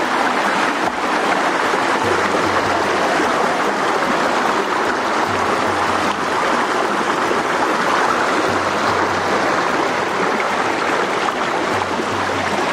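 Rocky forest stream rushing steadily over and between boulders.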